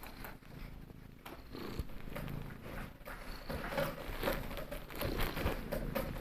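A cat purring while being stroked, with soft rustling from the hand moving over its fur and the cushions.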